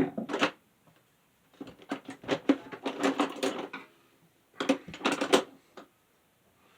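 Small hard parts clicking and clattering as they are handled and sorted, in two bursts of rapid clicks, the second starting a little after the middle.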